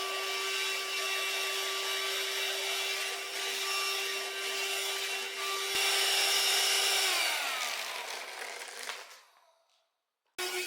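Cordless hand-held vacuum cleaner's motor running with a steady whine and a rush of air. It is switched off about seven seconds in and winds down, falling in pitch until it is silent. The same running sound comes back abruptly just before the end.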